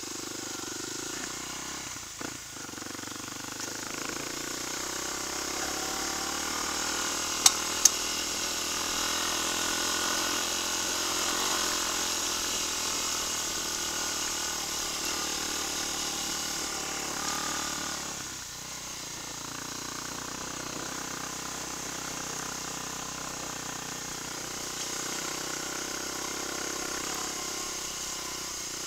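Trail motorcycle engine running while riding over a rough gravel dirt track. The engine note climbs over the first ten seconds or so and eases off about two-thirds of the way through. Two sharp knocks, the loudest sounds, come close together about a quarter of the way in.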